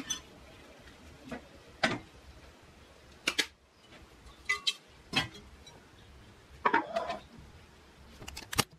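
Kitchen utensils and dishes clinking and knocking as food is dished up from a steel pot onto a plate: about six separate short clinks and knocks, a second or so apart.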